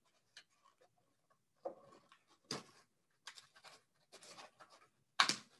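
Faint, irregular scraping and tapping of a spoon in a mixing bowl as flour is worked into sticky salt dough, with a louder scrape near the end.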